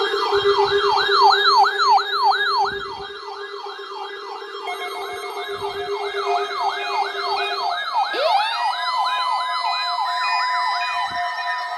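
Weather radio receiver alarms set off by the weekly test signal: a loud siren-like warble of falling sweeps, about three a second, over a steady lower tone. About eight seconds in, a second alarm tone glides up and holds steady alongside the warble.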